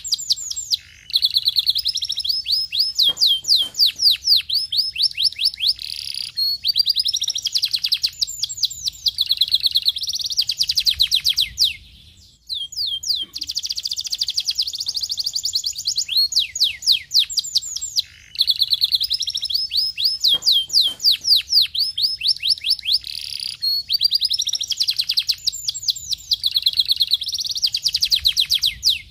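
Canary singing: long phrases of rapid, repeated high chirping notes and trills, broken by brief pauses a few times.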